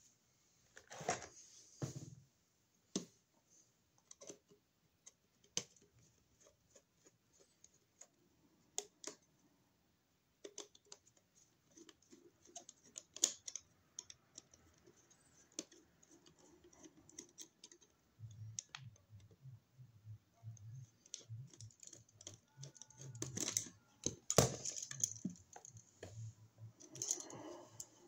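Scattered sharp clicks and light taps of hand tools, wire and a wall receptacle being handled while an electrical outlet is wired, with a few louder knocks near the end.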